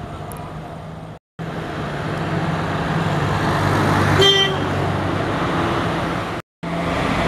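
Boeing 737 jet engines at takeoff thrust: a steady, loud rushing noise with a low hum, cut off twice for a fraction of a second by edits. About four seconds in, a short horn toot sounds over it.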